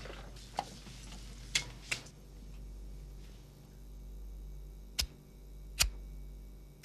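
Quiet room tone with a steady low hum, broken by about six sharp, separate clicks: a few in the first two seconds, then three more near the end.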